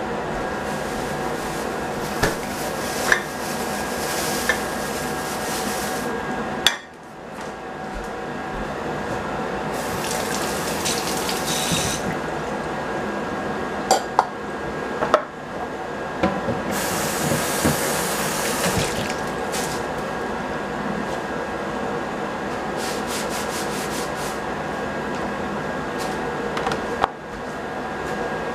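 Kitchen tap water running in two short spells of a couple of seconds each while a plastic cutting board is rinsed and rubbed clean by hand, with a few light knocks of the board and knife. A steady mechanical hum with a faint whine runs underneath.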